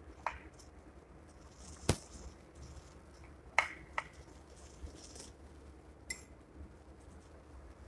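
Metal spoon and fork clinking and scraping against a dinner plate while scooping rice, with about five sharp clinks, two of them much louder than the rest.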